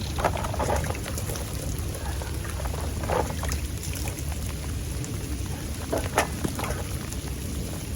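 Steady rain falling, with a low rumble underneath and a few short, sharp taps.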